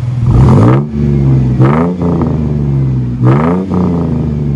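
2004 Ford Mustang's 3.8-litre V6 through a true dual exhaust with Flowmaster FX mufflers, idling in park and revved in three quick throttle blips, each rising sharply and dropping back to idle.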